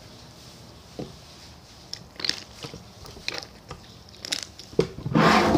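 Slime being stretched, folded and pressed by hand, making scattered sticky clicks and crackling pops, with a longer, louder squish near the end.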